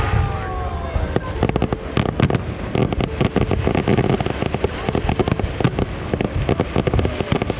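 Fireworks going off in rapid succession: a dense run of crackling bangs, many to the second, building from about a second in.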